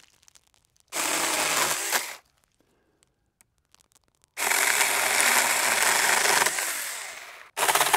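Saker mini cordless electric chainsaw (20-volt lithium-ion) running and cutting through dead branches and roots. It goes in three runs: a short one about a second in, a longer one from about four seconds in that tails off, and another starting just before the end.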